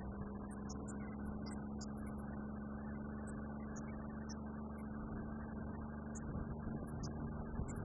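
Drayage truck's diesel engine running steadily. A rougher low rumble joins near the end as CSX diesel locomotives pull alongside.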